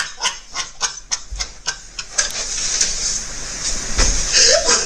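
A man's breathless, wheezing laughter: a quick run of short gasping breaths, then a long hissing wheeze, with a brief voiced squeak near the end.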